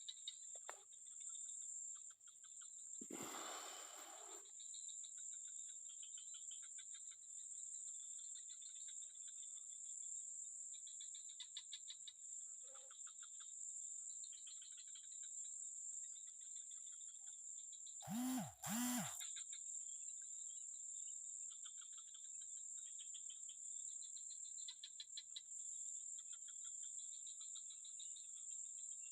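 Steady high-pitched drone of crickets and other insects, with pulsing chirring trills beneath it. A brief rustle comes a few seconds in, and two short louder sounds come about two-thirds of the way through.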